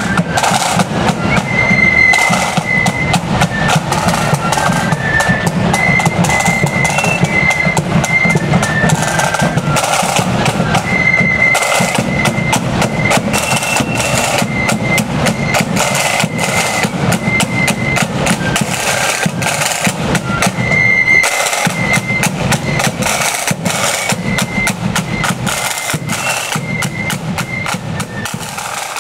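Marching band playing on the move: rapid rattling side drums and a pounding bass drum under a high melody of short held notes. The sound grows gradually quieter towards the end.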